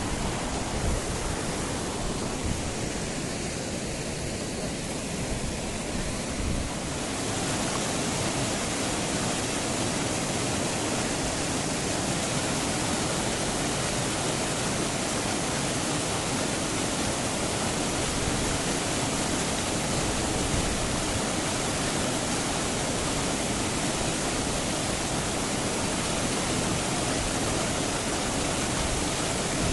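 Rushing water of a fast mountain trout stream, a steady rush that grows louder and brighter about seven seconds in, with a few faint knocks near the start.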